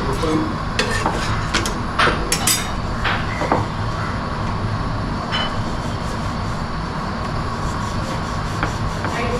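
Steady low kitchen rumble with a faint hum underneath, and several sharp clinks of utensils and cookware in the first few seconds, with one more about five seconds in.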